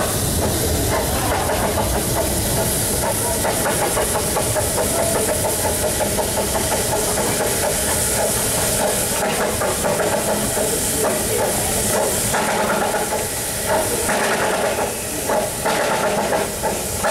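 Ffestiniog Railway narrow-gauge steam train running: a steady hiss and rumble of the train on the move, with a few sharp clicks and knocks from the wheels on the track in the last few seconds.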